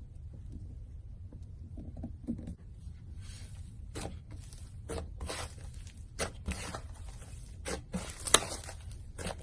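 Slime being squeezed and stretched by hand: irregular bursts of noise about once or twice a second, starting about three seconds in, with one sharp pop near the end.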